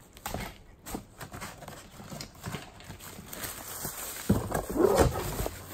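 Hands rummaging through a cardboard box of stored items: plastic bags crinkling, papers and objects being shifted, with scattered light knocks. About four seconds in it gets louder, with a brief wordless vocal sound among the handling noise.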